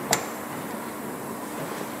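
A single sharp metallic clink just after the start, with a brief high ring, from a tool on a rear disc-brake caliper as its piston is wound back; a steady low hum continues underneath.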